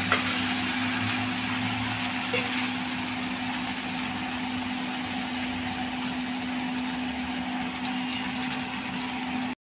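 Thin rice-and-cucumber batter sizzling on a hot, oiled cast-iron griddle as it sets into a lacy pancake, a steady hiss that eases a little after the pour. A constant low hum runs underneath.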